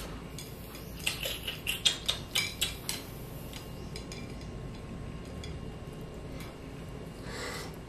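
Bamboo skewers clicking and tapping against a plate as balls are speared on them: a quick run of about ten sharp taps between one and three seconds in, then only faint scattered ticks.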